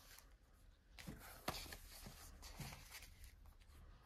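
Faint rustling of old paper photographic prints being handled and shuffled, with one light tap about a second and a half in.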